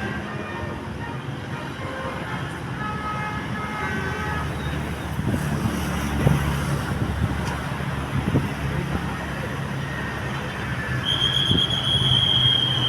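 Road traffic with a heavy engine rumbling. About eleven seconds in, a bus's telolet horn sounds one high, steady note.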